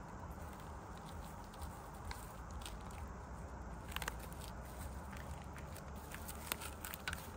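Light crinkling and clicking of a cling-film-wrapped bamboo sushi mat being pressed and rolled around rice by gloved hands, with a few sharper clicks about four seconds in and near the end, over a low steady hum.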